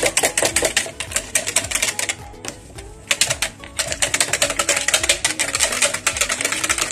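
Wire whisk rattling quickly against the sides of a plastic measuring jug as sauce powder is whisked into water, a fast run of clicking strokes with a brief pause about two seconds in.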